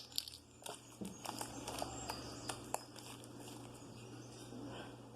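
Light scattered clicks and taps of small plastic unicorn toys being handled and put into the slime, most of them in the first three seconds, over a faint steady hum.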